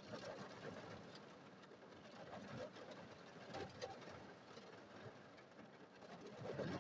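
Faint rain falling on a car, heard from inside the cabin as a steady patter with a few scattered louder drops.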